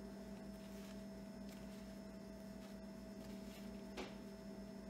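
Quiet room tone with a steady low electrical hum, and a single soft click about four seconds in.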